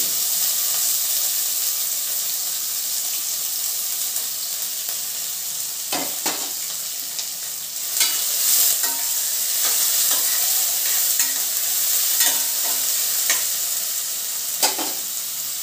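Chopped onions sizzling in hot oil in the pot of a pressure cooker, a steady frying hiss, while a steel spoon stirs them and now and then knocks against the pot.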